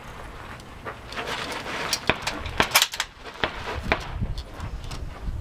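A series of sharp metallic clicks and knocks, the loudest cluster about halfway through: a bolt-action rifle being handled and shifted on top of a wooden barricade.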